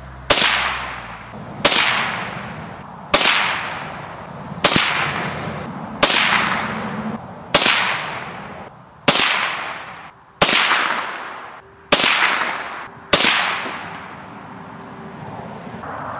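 Ten shots from a Ruger 10/22 semi-automatic .22 LR rifle firing CCI Velocitor rounds, evenly paced about one every second and a half. Each sharp crack fades out over about a second.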